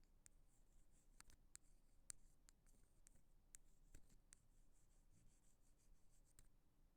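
Ear pick scraping and tapping on an earphone microphone for ASMR ear cleaning: faint, irregular sharp clicks and short scratches that stop shortly before the end.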